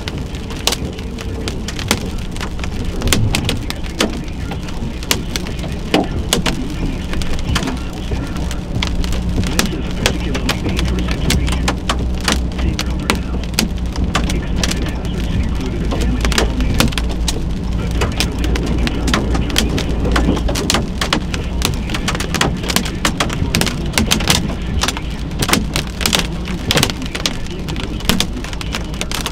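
Heavy rain pelting a hard surface in a dense, unbroken patter of sharp drops, over a steady low rumble.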